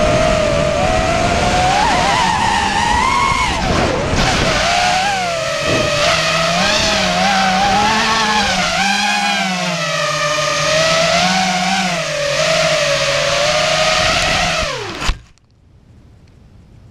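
ZMR 250 FPV quadcopter's brushless motors and propellers whining as heard from its onboard GoPro, the pitch rising and falling with throttle during freestyle flying. About 15 seconds in, it hits the grass with a thump and the motors cut off.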